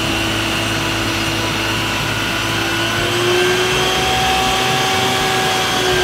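Water-cannon tanker truck's engine and pump running steadily while its roof-mounted water cannon shoots a jet of water: a loud, even drone with a hiss, its pitch stepping up slightly about halfway through.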